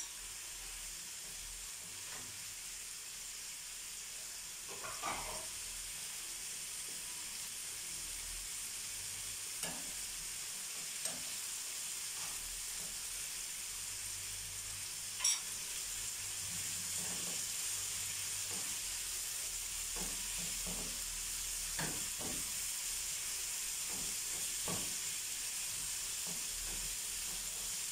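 Sliced liver with peppers and sausage with onion sizzling in frying pans: a steady frying hiss that grows a little louder about halfway through. A few short clicks and scrapes of a spatula against the pan, the sharpest about halfway through.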